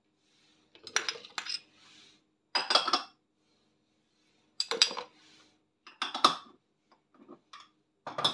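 A metal spoon and small ceramic dishes clinking and scraping as chopped parsley, green chillies and garlic cloves are tipped into a plastic blender beaker: about six short clattering bursts with pauses between.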